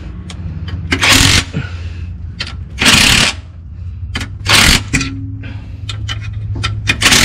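Cordless impact driver running in short bursts, about four of half a second each, as it drives the clutch pressure-plate bolts down onto the flywheel a little at a time so the cover seats evenly. A steady low hum runs underneath.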